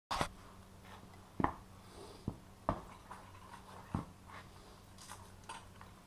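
Aluminium climbing spurs knocking and clinking as they are handled, with a handful of sharp separate knocks spread through the first four seconds and fainter ones after, over a steady low hum.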